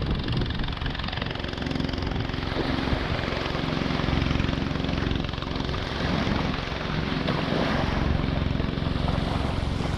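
Steady engine drone with a low hum over a loud rushing noise.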